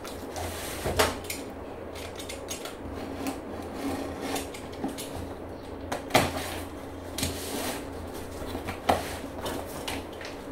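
A parcel being opened by hand: the plastic mailer wrap slit with a box cutter and the cardboard box flaps pulled open, giving irregular rustling, scraping and crackling with a few sharper knocks, over a faint steady low hum.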